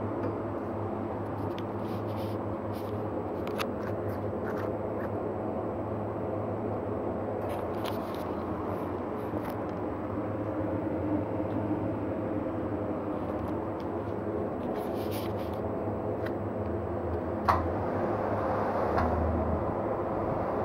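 Wheel balancing machine spinning a Citroën C3 wheel and tyre: a steady mechanical hum with scattered light clicks and a sharp knock about seventeen seconds in.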